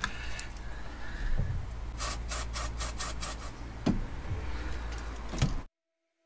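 Rubbing and scraping of hand-tool work, with a quick run of about half a dozen clicks about two seconds in. The sound cuts off suddenly near the end.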